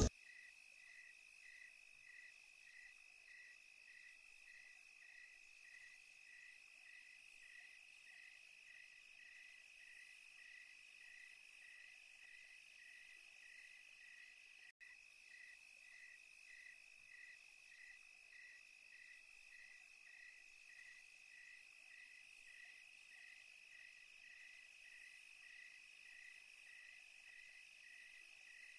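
Faint chorus of night insects: a steady high trill with a regular chirp about twice a second.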